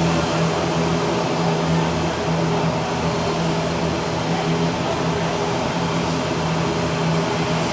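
Twin turboprop engines of an ATR 72 airliner running steadily: an even propeller drone with a strong low hum, neither rising nor falling.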